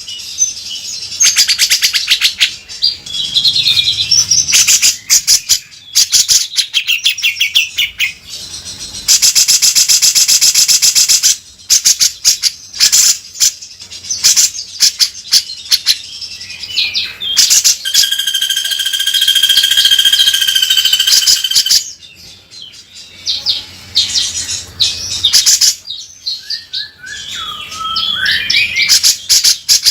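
Grey-cheeked bulbul (cucak jenggot) calling loudly in harsh, rapid rattling chatter. It gives a long buzzing rattle about nine seconds in and another around eighteen seconds in, and short whistled notes sliding up and down near the end.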